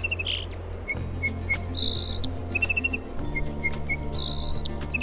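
Sparrow chirping: a phrase of short, high chirps and quick trills that repeats about every two and a half seconds, over soft background music with low held notes.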